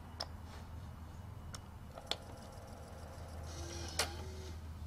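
A few faint clicks, then the Macintosh 128K's freshly lubricated 400K floppy drive ejecting a disk: faint whirring from about two seconds in, ending in a sharper click near the end as the disk comes out of the slot.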